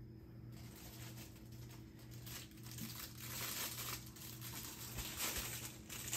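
Packing material crinkling and rustling as an item is unwrapped inside a cardboard box. It starts about half a second in and is loudest in the middle.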